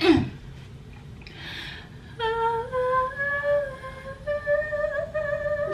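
A woman singing wordless, long held notes that step slowly upward in pitch, starting about two seconds in.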